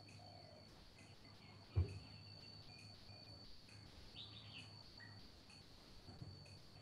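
Faint outdoor ambience: a steady high insect drone with a few short bird chirps, and a single low thump about two seconds in.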